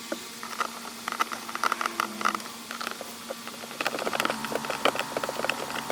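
Plastic center-console trim pieces being handled and fitted around the shifter: a run of light clicks, taps and scratches that grows busier about four seconds in.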